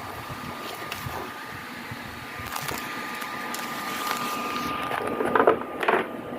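Small clicks and taps of hand work on a circuit board while a replacement resistor is fitted, over a steady faint high-pitched tone. Two louder knocks or handling sounds come near the end.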